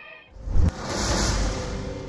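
A sudden loud rushing swell, with a sharp click just after it starts, fading away over about a second, over music: a horror-style sound effect.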